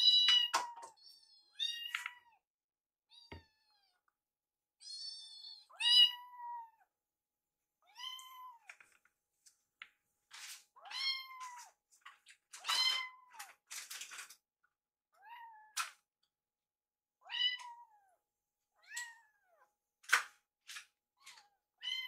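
Two young kittens, one white and one grey tabby, mewing over and over in short, high-pitched calls that rise and fall, one every second or two, as they ask to be fed.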